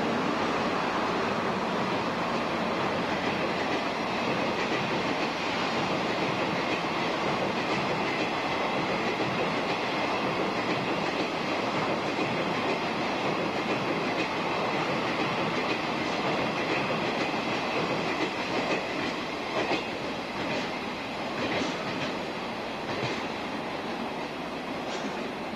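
Blue JNR sleeper train's passenger coaches rolling past at speed with a steady rumble of wheels on rail. In the last several seconds the sound eases off as the train recedes, and separate clacks of wheels over rail joints stand out.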